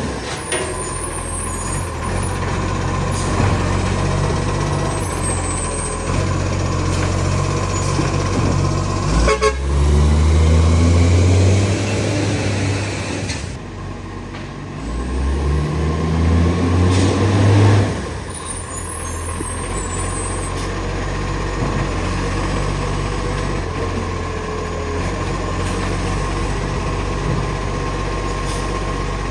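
Garbage truck's diesel engine with an exhaust leak, revving up and dropping back several times as it works. There is a sharp clunk about nine seconds in.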